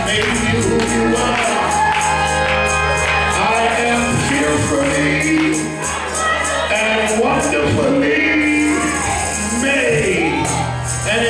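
Live gospel music: a man singing into a microphone over sustained low bass notes, with a tambourine struck on the beat.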